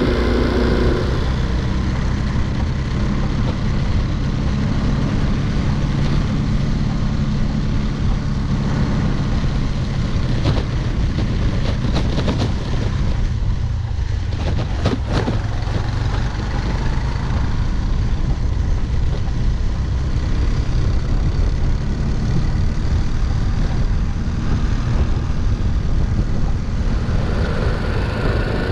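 A Honda C90 step-through motorcycle's small single-cylinder four-stroke engine running steadily at road speed, with wind noise on the microphone. The engine note dips briefly about halfway through, then picks up again.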